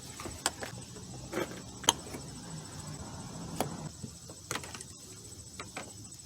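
Irregular sharp clicks and light metallic knocks of hand tools and bolts being handled, over a steady background hiss.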